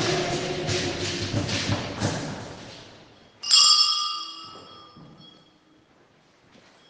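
Choral singing with a regular beat fades out. About halfway through, a small bell is struck once and rings with a bright metallic tone, dying away over about two seconds.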